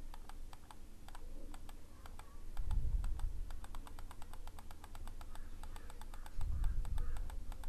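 Rapid, even clicking of a computer's input controls, about five or six light clicks a second, as pages are stepped through. Two low rumbles come in, one about three seconds in and one near the end.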